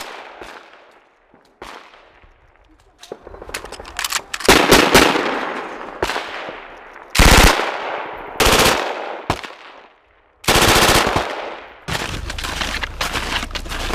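Light machine gun firing: a couple of single shots, then several rapid bursts, each trailing off in an echo. Near the end the firing gives way to a steady rustling noise.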